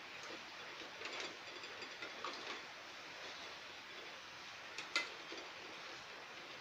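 Steel spoon stirring a thick vegetable mash in a stainless steel pan, scraping and clicking against the metal now and then, with the sharpest click about five seconds in.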